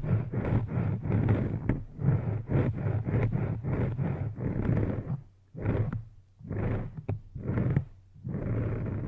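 Close rhythmic rubbing strokes, about three a second. After the middle they break into a few separate strokes with short pauses, then run on steadily near the end.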